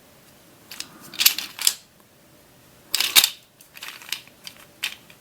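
Hard plastic clicks and rattles from a Back Spin / Magical Dish ball puzzle being turned in the hands: a pair of clicks about a second in, a sharper, louder click near three seconds, then a few light ticks.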